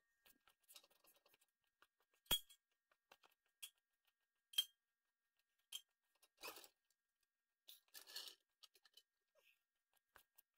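Near silence broken by faint, scattered metallic clinks and clicks, with two short scraping rustles about six and eight seconds in, from handling a floor jack and tools while the car is let down.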